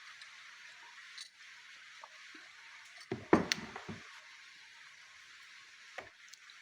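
Steady rain hiss, with a short cluster of sharp clicks and knocks about three seconds in and one more click near the end.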